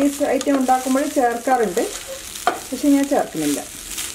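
Wooden spatula stirring and tossing fried rice in a stone-coated nonstick pan. It scrapes the pan with repeated wavering squeaks and gives a few sharp taps, over a light sizzle.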